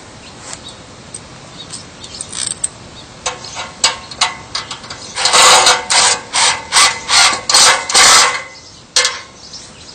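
Cordless impact driver driving a screw through a ladder rail into a log: a few clicks of handling, then a longer burst followed by about six short trigger pulses, snugging the screw down. Scattered clicks and knocks come just before and after it.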